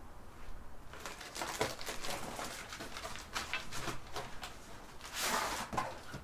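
Handling noise as parts and packaging are moved about: a run of irregular clicks, rustles and light knocks, with a longer scraping swish about five seconds in.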